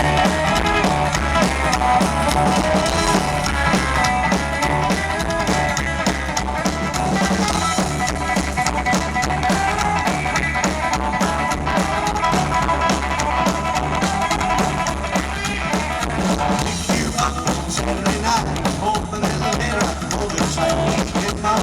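Live rockabilly band playing an instrumental opening: electric guitar over slapped upright bass and drums, with a steady driving beat.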